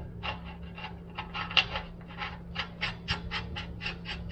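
Rhythmic metal-on-metal rasping, about four strokes a second and quickening slightly toward the end, as a nut is worked onto a leaf-spring bolt against a lock washer. A steady low hum runs underneath.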